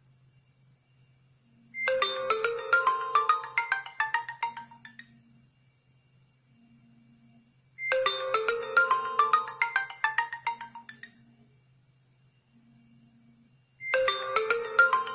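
HTC U11 smartphone ringing with an incoming call: a bright, mallet-like ringtone melody that starts about two seconds in and repeats every six seconds, three phrases in all. Short low buzzes come between the phrases.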